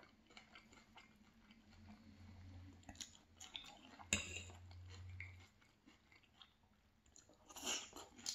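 Close-miked chewing of a mouthful of food: soft, wet mouth clicks and crunches. A low hum runs through the middle seconds, a sharp click sounds about four seconds in, and a cluster of louder crunches comes near the end.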